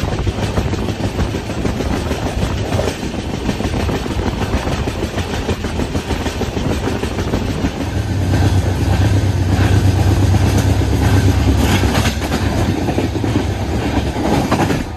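Moving passenger train heard from on board: steady rumble of wheels on the rails with occasional clacks over rail joints, the low rumble swelling for a few seconds past the middle.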